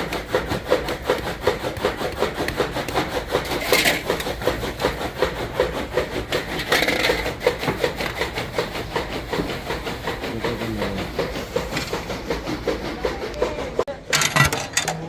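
Fast, steady, rhythmic rasping, like something being rubbed or sawn back and forth, which breaks off about a second before the end. A short, loud clattering noise follows it.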